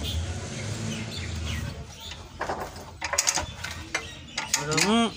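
Metal knocks and clanks as a truck gearbox is shifted on a transmission jack, over a low hum. Near the end comes the loudest sound, a short call that rises and then falls in pitch.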